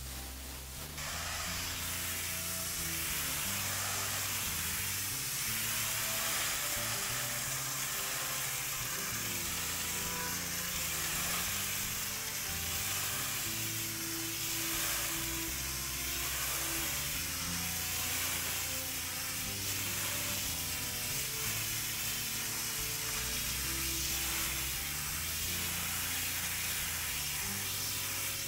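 Pressure washer spray hissing steadily on hard surfaces, starting about a second in, with background music playing under it.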